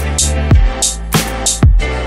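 Background music: an electronic beat with kick drum and sharp snare-like hits over a held bass line.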